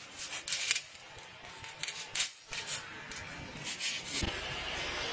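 Irregular short rubbing noises, several a second. About four seconds in they give way to a steady low background rumble.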